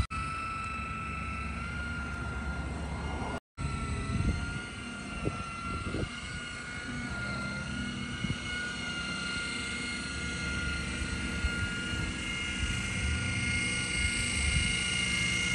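An engine running steadily, with a low rumble and a constant high whine over it. The sound drops out completely for a split second about three and a half seconds in.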